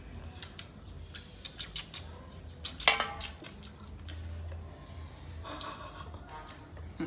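A plastic spoon clicking and scraping against a stainless steel bowl of chili-salt-coated mango pieces, a string of light clicks followed by one loud sharp clack about three seconds in.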